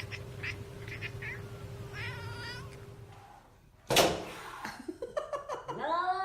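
Domestic cat vocalising: a short wavering meow about two seconds in. After a sudden loud burst about four seconds in, a long drawn-out yowl rises and falls in pitch.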